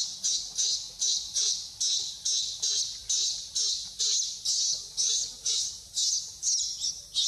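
Baby macaque screaming: a run of shrill, high-pitched cries repeating at about two to three a second, stopping near the end.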